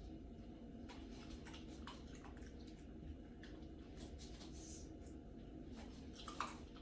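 Faint scattered taps and clicks of a Cavalier King Charles spaniel moving on a wooden floor and nosing among upturned plant pots, with a soft sniff-like hiss partway through and a louder tap near the end.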